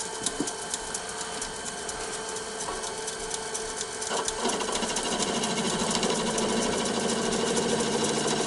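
Wood lathe running with a small wooden egg cup blank spinning, a steady motor hum with fine rapid ticking. About four seconds in it grows louder with a fluttering edge as a sharp chisel is brought against the spinning wood to clean it up.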